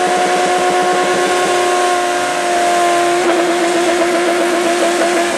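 Motorcycle engine held at steady high revs during a burnout, its rear tyre spinning on the pavement in a cloud of smoke. The tone turns rougher about three seconds in, and other motorcycle engines rev up and down behind it.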